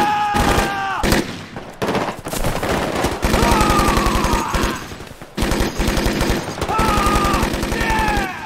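Sustained automatic rifle and machine-gun fire, many rapid shots overlapping, with men yelling over it. The firing eases briefly twice, about two seconds in and near the middle.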